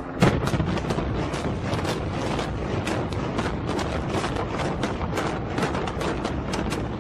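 Building demolition by explosives: a loud blast just after the start, then a rapid string of sharp charge detonations at several a second over the rumble of the structure collapsing.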